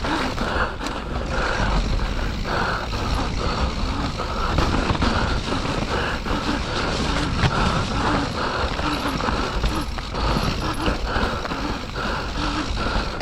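Mountain bike ridden down a wet, muddy trail: steady tyre and rolling noise in the mud with frequent knocks and rattles from the bike.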